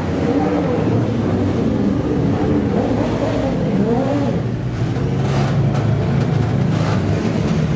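Motor vehicle engines running, their pitch rising and falling as they rev, over a steady low rumble.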